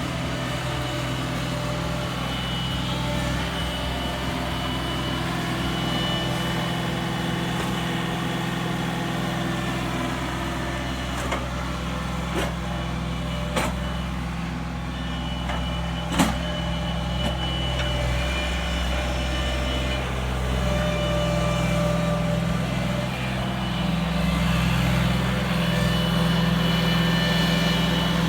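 Ditch Witch SK850 mini skid steer's engine running steadily under work. A few sharp knocks come about halfway through, the loudest at about 16 seconds, and the engine note shifts a few times in the second half.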